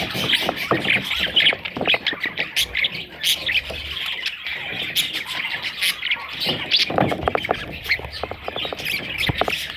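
Budgerigar chicks squawking and chattering without pause, a dense overlapping mass of short rasping calls.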